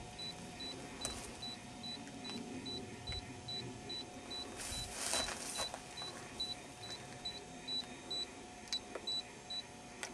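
Faint, high electronic beeping, short even pips about two and a half times a second, over a low steady background. A burst of rustling in dry grass comes about halfway through, and a few light clicks are scattered through it.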